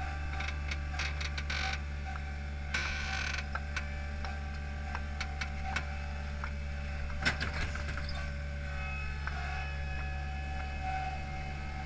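Hydromak paving machine's engine running steadily, with clicks, knocks and creaks from the hydraulic arm and the paver clamp as it sets down and lifts off a layer of concrete pavers. There is a short hiss about three seconds in and a sharp clack a little after seven seconds.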